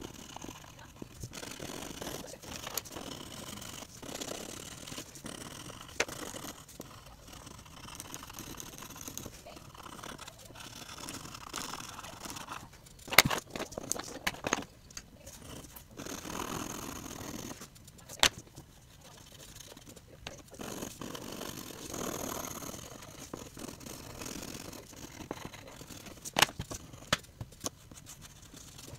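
Colored pencil scratching on paper as an area is shaded in, in irregular stretches of scribbling strokes, with a few sharp taps around the middle and near the end.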